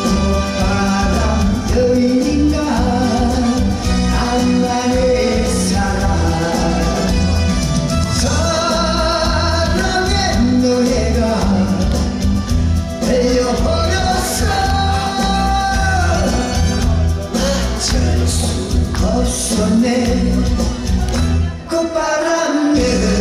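A man sings a Korean trot song into a microphone over loud backing music with a steady bass beat. The beat drops out briefly near the end.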